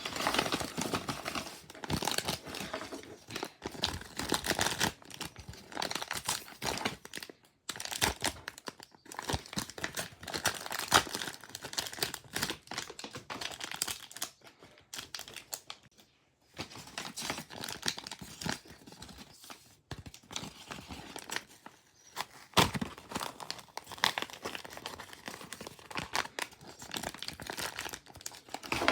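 Mail packaging being handled and opened: crinkling and tearing in irregular bursts, with a few short pauses.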